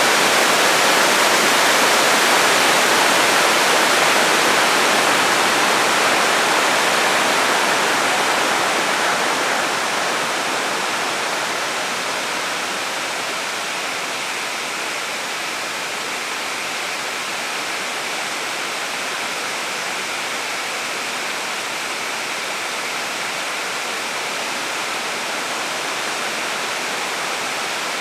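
Waterfall: water falling and splashing in a continuous steady rush, easing a little in loudness about ten seconds in, then holding steady.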